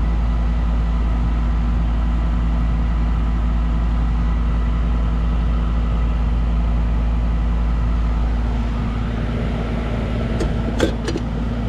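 Goodman air-conditioner condensing unit running: a steady electrical hum from the compressor and fan motor. The low rumble eases a little about eight and a half seconds in, and a few light clicks come near the end.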